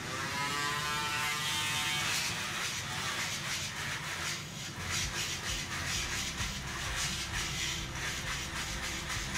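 Electric nail grinder buzzing against a dog's toenail, smoothing off the sharp edges of a freshly cut nail; its whine shifts in pitch over the first couple of seconds as it bears on the nail.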